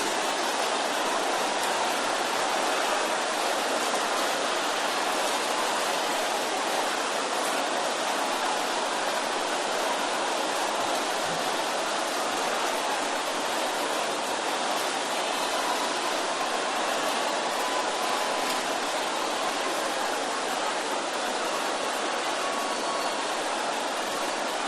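A large congregation praying aloud all at once, hundreds of voices merging into one steady, dense wash of sound with no single voice standing out.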